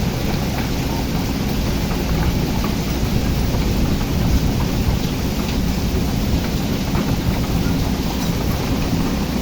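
Heavy rain falling steadily, with the low, even running of an excavator's diesel engine underneath and scattered drop ticks.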